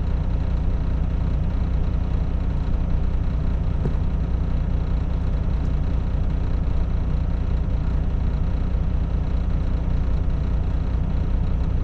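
Semi truck's diesel engine running steadily, a constant low drone heard from inside the cab.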